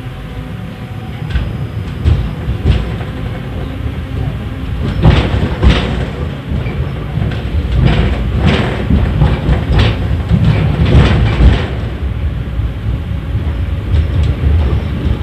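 71-931 Vityaz tram running between stops, heard from inside the car: a low rumble with a faint steady hum that fades after the first few seconds. From about five seconds in comes a run of knocks and clatter from the wheels on the track.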